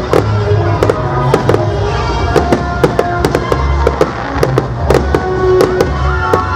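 Fireworks display: a rapid, irregular run of sharp bangs and crackling reports, several a second, with music playing underneath.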